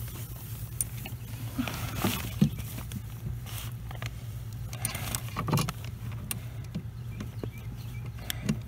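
Scattered small metal clicks and taps of hands working the clutch master cylinder's pushrod end at the clutch pedal arm, over a steady low hum.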